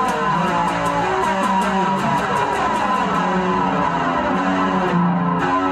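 Guitar chords strummed in a steady rhythm, with no singing over them.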